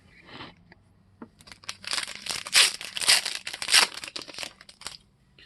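Wrapper of a trading-card pack being torn open and crinkled in the hands: a dense run of crackling and tearing for about three and a half seconds, starting about a second in.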